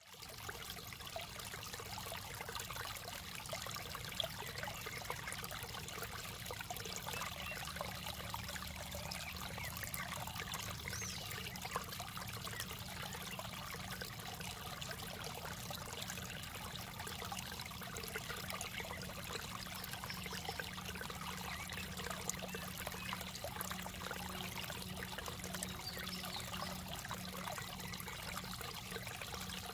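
Shallow water in a drainage ditch trickling over a small drop and splashing among rocks, a steady babble with many small splashes.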